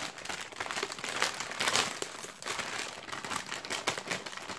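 Foil Panini FIFA 365 2020 Mega Starter Pack bag crinkling as a hand rummages inside it and pulls out the sealed packets and cards, in uneven bursts of crackle.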